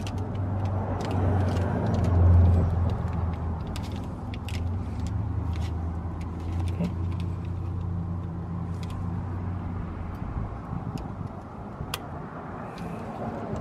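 Light metallic clicks of thin steel brake-pad shims being handled and pressed onto Toyota Prius front brake pads. Under them is a steady low motor-vehicle drone that swells about two seconds in and fades out about ten seconds in.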